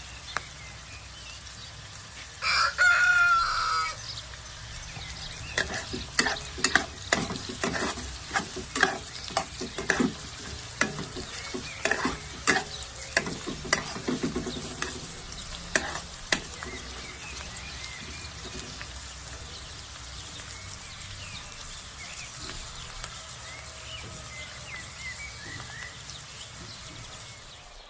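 Food sautéing in a pan with a steady sizzle, a spatula scraping and clacking against the pan in a run of quick strokes over about ten seconds from six seconds in. A rooster crows once, loudly, about two and a half seconds in.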